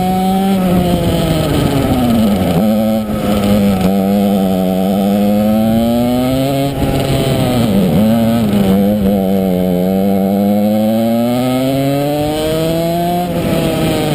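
Kart engine heard onboard at speed, its pitch climbing steadily along the straights and dropping sharply off the throttle for corners, about two and a half seconds in, twice around seven to eight seconds, and again near the end.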